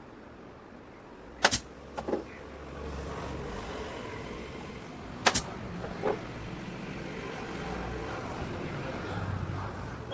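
Two sharp snaps about four seconds apart, each followed by a fainter knock half a second later, over a steady low rumble.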